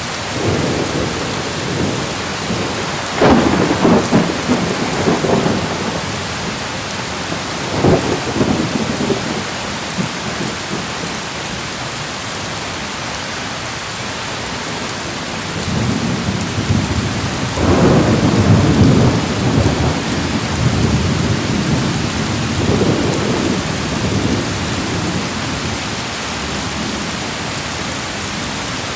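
Steady rain falling, with thunder rumbling through it in several rolls: a sharp crack around 3 seconds in, another near 8 seconds, and a long roll from about 16 to 24 seconds.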